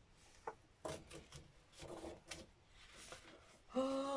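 Paper rustling, with several small clicks and snaps, as a page is worked free of an old book's tight binding. Near the end a sung, drawn-out voice begins.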